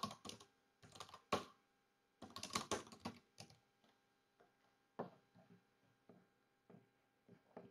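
Computer keyboard typing: quick bursts of key presses in the first few seconds, then a few scattered single key taps, as a command is entered at a terminal.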